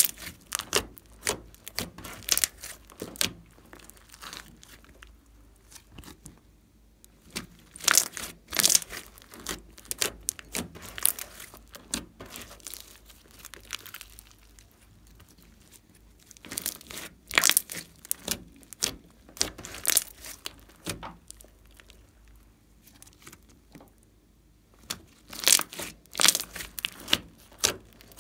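Hands squeezing, folding and pressing glossy slime mixed with glitter: sticky crackles, pops and squelches. These come in spells of handling with quieter pauses between.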